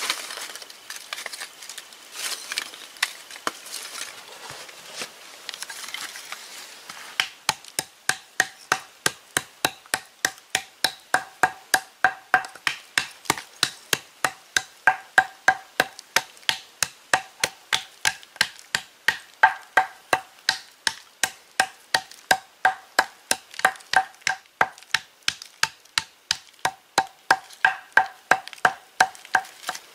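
Fired pottery shards being handled with light clinks, then, from about seven seconds in, pounded into powder on a flat stone slab with a hand-held pounder: a steady run of sharp strikes, about two and a half a second, each with a short ring.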